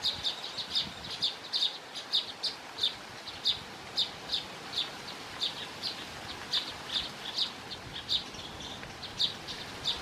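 Baya weaver chirping: short, high chirps repeated steadily about two or three times a second.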